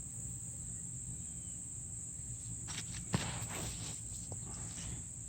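Crickets chirring: a steady high-pitched drone. A few small clicks and one sharp click about three seconds in.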